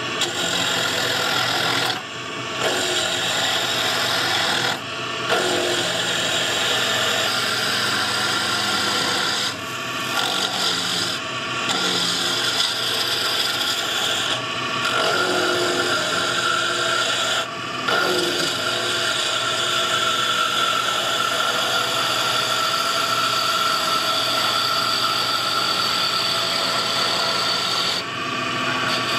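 Central Machinery 8x12 mini wood lathe running while a round carbide turning tool cuts a spinning wood spindle: a continuous scraping, rasping cut over the lathe's steady hum. The cut drops off briefly several times as the tool eases off the wood.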